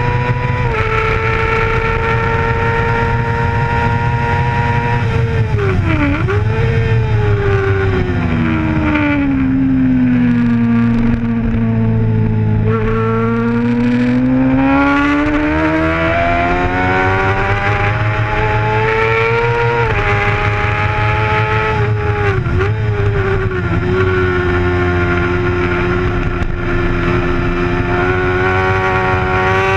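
Racing sport bike engine at high revs, heard from a camera on the bike itself. It holds steady, dips sharply about six seconds in, then falls slowly to low revs through a leaned-over corner and climbs back up, with two brief dips for gear changes around twenty seconds in before holding high again.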